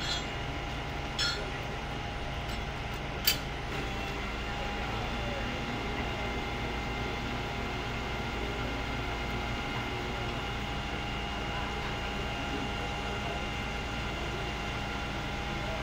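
Truck-mounted knuckle-boom crane's engine and hydraulics running steadily with a constant hum while the boom is worked. A light click about a second in and a sharp metallic knock about three seconds in.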